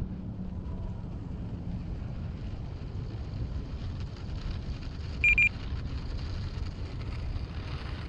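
Wind buffeting the microphone, with a single short, high electronic beep from the RC transmitter a little past halfway.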